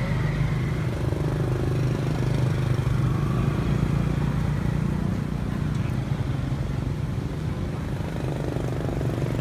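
Steady low engine hum, as of a motor vehicle running at idle, unchanging throughout.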